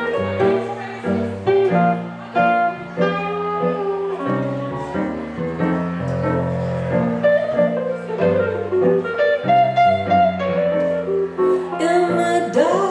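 Live instrumental blues-jazz played on an archtop hollow-body electric guitar with an electric keyboard, with no vocals; a walking low line moves underneath the chords and melody.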